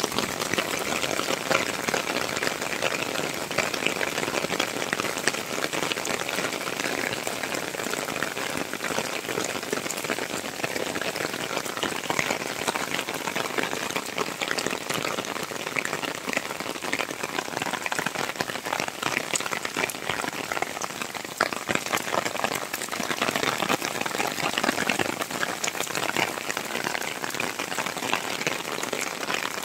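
Heavy rain pouring steadily onto wet pavement: a dense, even hiss full of fine drop patter.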